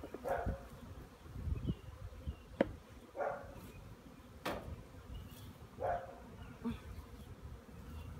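Honeybees buzzing around an open hive, swelling and fading every second or so as bees pass near the microphone. Close fabric rustle from the bee suit and a couple of sharp clicks come through as well.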